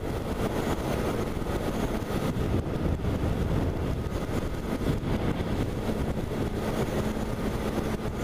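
Steady wind rush and road noise on a Honda CBR600RR sport bike cruising at highway speed, about 75 mph, with the engine's steady drone under the wind.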